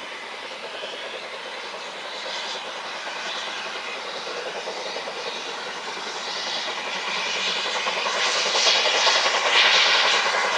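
A steam train approaching on the line, its running noise growing steadily louder, most sharply over the last few seconds.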